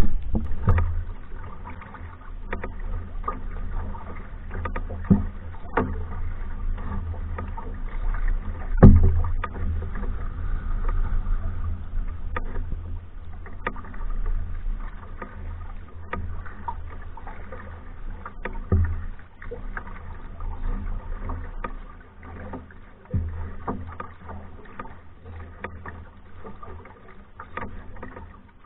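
A Hornbeck New Trick solo canoe being paddled: paddle strokes and water, with irregular sharp knocks and clicks, a few of them louder, over a low rumble that fades in the last third.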